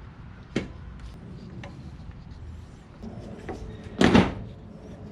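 A few light knocks of parts being handled while a new valve cover gasket is fitted on the engine, then a louder clatter about four seconds in.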